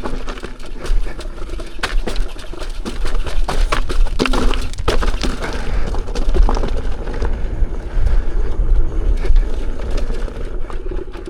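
Electric unicycle ridden down a rough dirt trail: wind rumbling on the microphone with a steady run of knocks and rattles from the ride over bumps.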